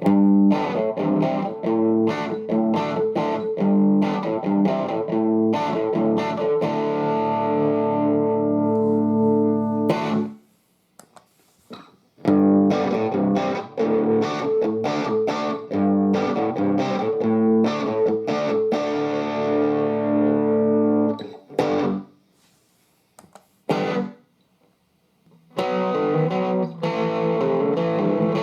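Electric guitar played through a Vox EL84 valve combo amp. A phrase of about ten seconds with chords left ringing is followed by a short pause and a second similar phrase, then a few short stabs, and the playing starts again near the end.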